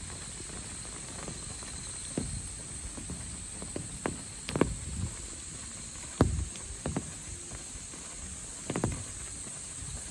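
Steady high-pitched insect chorus with a fainter lower tone under it, over a low even hiss. Irregular footsteps land on a path a dozen or so times, the loudest steps about four and a half and six seconds in.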